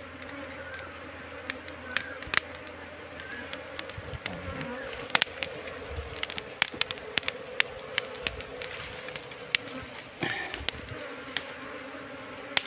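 A clustered swarm of honey bees buzzing in a steady, dense hum, with sharp clicks scattered through it.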